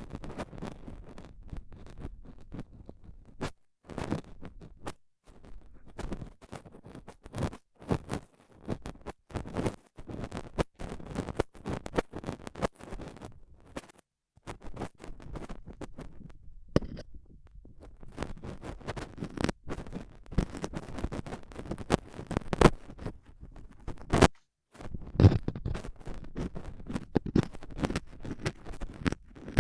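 Stainless steel dental tool scraping and scratching inside the ear of a binaural ASMR microphone, as if scraping dried earwax. It goes in dense, irregular strokes and clicks, with a few short pauses.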